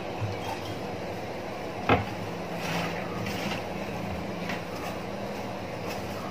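Faint rubbing of hands rolling a piece of soft rice-flour dough on a countertop, with one knock about two seconds in, over a steady low hum.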